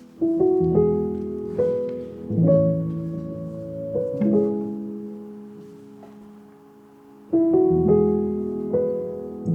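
Background music: soft piano playing slow, sustained chords that fade, with a new phrase starting about seven seconds in.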